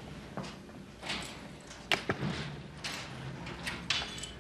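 A few scattered, irregular knocks and clicks, with a sharp click about two seconds in and a small cluster of them near the end.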